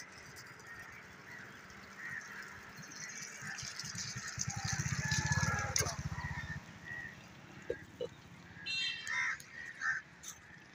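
Waterfowl calling in short honks, with a low rumble that builds and then stops about two-thirds of the way through.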